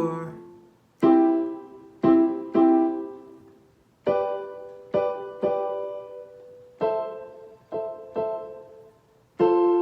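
Instrumental ending of a song: slow single chords, about ten in all, each struck once and left to ring and fade before the next.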